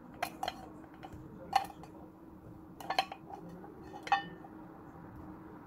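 Stainless steel mixing bowl knocking about five times, each knock with a short metallic ring, as sausages are scooped and tipped out of it with a wooden spoon.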